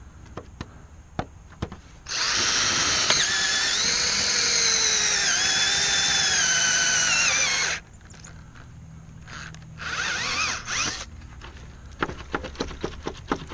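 Cordless drill spinning a homemade mild-steel hole saw into an old wooden fence board around a ring-shank nail: a steady motor whine for about six seconds that sags in pitch as the bit bites, then two short bursts. Light clicks and knocks before and after as the drill and board are handled.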